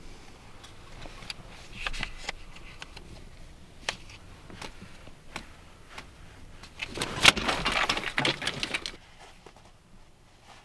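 Handling noises inside a car: scattered clicks and taps, then a louder rustling, scraping burst about seven seconds in that lasts about two seconds.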